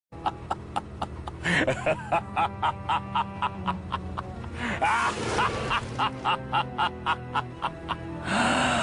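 A short meme sound-effect clip of music with a quick steady beat of sharp clicks, about three a second, over low steady tones, with some sliding voice-like sounds. It changes to a denser, fuller sound near the end.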